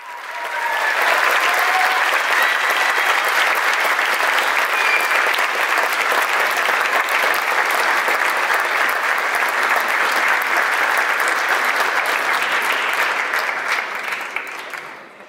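Audience clapping in a theatre hall, a dense steady applause that fades in at the start and fades out near the end.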